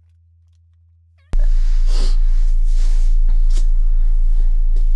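A quiet stretch with a faint low hum, then about a second in the sound cuts in loud: rustling and light knocks of gift items being handled and set down on carpet, over a strong steady low hum.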